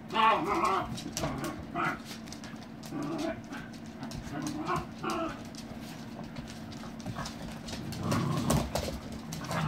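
Young dogs play-fighting: pitched vocalising, loudest in the first second and recurring in short bursts, over claws clicking and scrabbling on a wooden floor, with a louder scuffle near the end.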